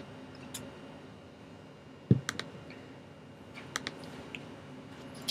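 A few scattered computer keyboard clicks, with one louder dull thump about two seconds in.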